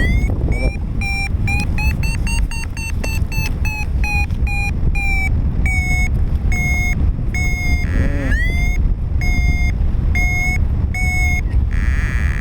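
Paraglider variometer sounding its climb tone: a rapid series of beeps that creep up in pitch, then slow and settle lower, with a fresh upward sweep of the tone about two-thirds of the way through. The beeps signal the glider rising in lift, faster and higher for a stronger climb. Heavy wind buffets the microphone underneath.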